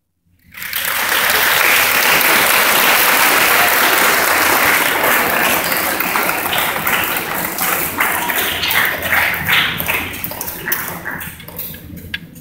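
Audience applauding. It starts suddenly after a brief silence and thins out to scattered claps near the end.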